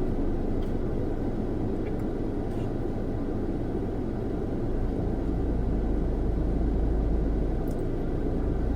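Steady low rumble of a car, heard from inside the cabin, with the deepest hum growing stronger about halfway through.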